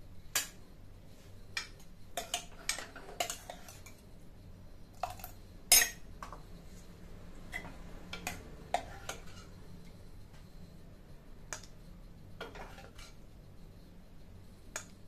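Steel ladle knocking and scraping against the inside of a stainless steel pressure cooker as thick gravy is stirred and scooped out: scattered single clinks, the loudest about six seconds in.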